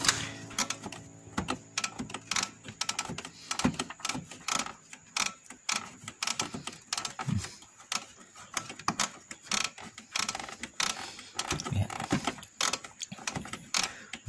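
Irregular clicks and taps of plastic parts inside an opened Canon G2010 inkjet printer as they are handled and pressed by hand, several a second.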